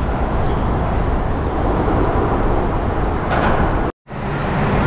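Steady rumble of traffic on the highway bridge overhead, with a momentary dropout near the end.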